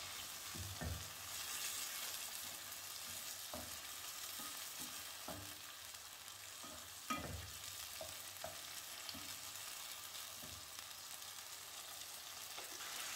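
Yogurt-marinated chicken chunks sizzling in hot oil over a high flame, stirred with a wooden spatula that knocks lightly against the pot now and then. The sharpest knock comes about seven seconds in.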